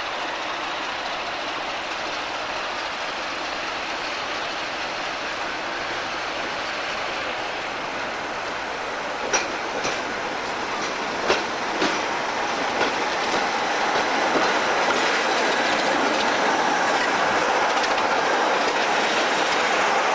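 A pair of BR Class 26 diesel locomotives running slowly into a station. Their wheels give a few sharp clicks over pointwork about halfway through, and the sound grows louder as the locomotives draw up alongside.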